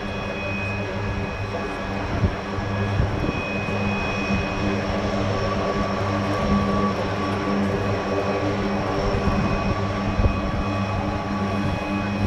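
McDonnell Douglas KC-10 Extender's three General Electric CF6 turbofans running at low power as the tanker taxies: a steady whine of several high tones over a low drone.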